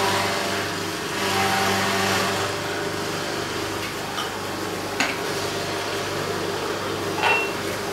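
Electric juicer motor running steadily as kale and apple are pushed down its feed chute, with a couple of short knocks from the produce and plunger.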